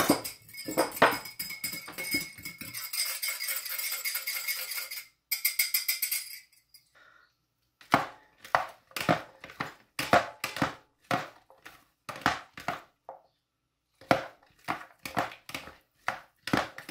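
A utensil mixing in a bowl: about five seconds of quick, continuous scraping with a ringing tone from the bowl, then after a short pause, separate strokes about two or three a second.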